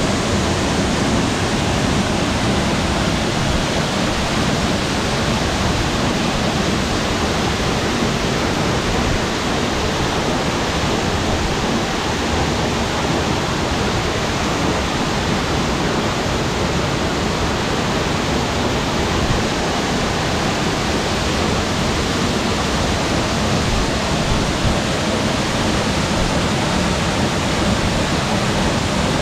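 Waterfall cascading over boulders into a rock pool: a steady, loud rush of falling water.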